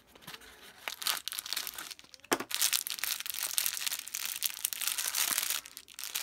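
A small cardboard box being opened with a few light clicks, then a clear plastic bag of white plastic airsoft BBs crinkling steadily in the hands, starting with a sharp crackle about two seconds in.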